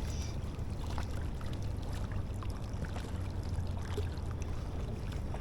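Steady low rumble with the wash of river water at the bank, and a few faint ticks.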